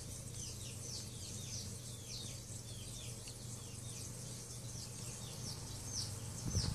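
Small birds chirping: a quick series of short, high, falling chirps, two or three a second, over a low steady hum.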